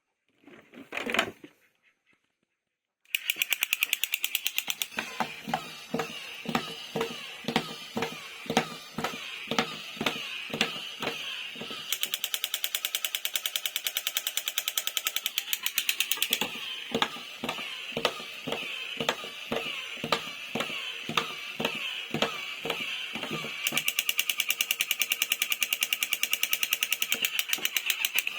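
Rapid, even mechanical clicking, like a small geared mechanism running, starting about three seconds in, with irregular louder knocks over it about twice a second.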